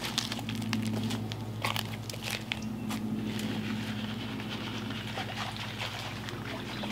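Crunching footsteps on dry leaves and stone with scattered clicks as fish-food pellets are shaken out of a plastic jug scoop, over a steady low hum.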